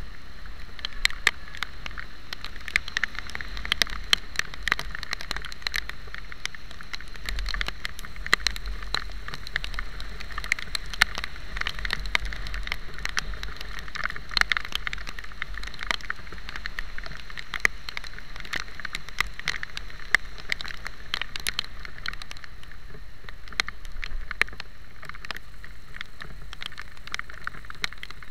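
Rain striking a motorcycle-mounted camera at riding speed: many sharp, irregular ticks of raindrops hitting the housing, over a steady hiss of wind and wet road and a low rumble.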